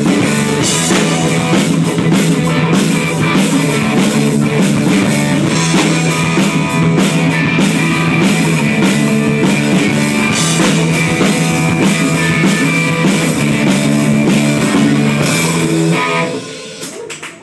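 Live rock band playing electric guitars, bass and a drum kit at full volume; the song stops about a second and a half before the end, leaving the sound to fade out.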